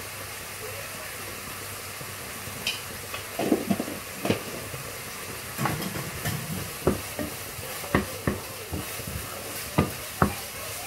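Vegetables sizzling in a frying pan, with a wooden spoon stirring them. From about three and a half seconds in, the spoon scrapes and knocks against the pan again and again.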